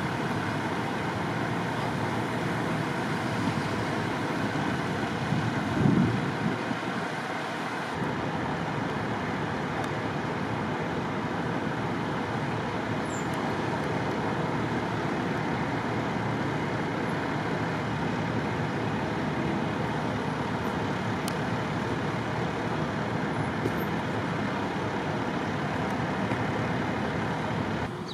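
Steady road traffic noise, with a brief louder low swell about six seconds in.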